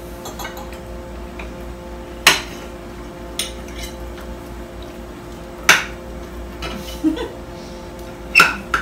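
Forks and knives clinking and scraping against plates as roast chicken is cut and eaten, a few sharp clinks standing out, the loudest about two seconds and five and a half seconds in. A steady low hum runs underneath.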